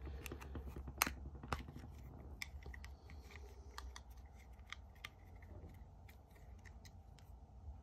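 Faint clicks and scrapes of a pink eyeshadow palette and its packaging being handled and worked open by hand, with two sharper clicks between one and two seconds in.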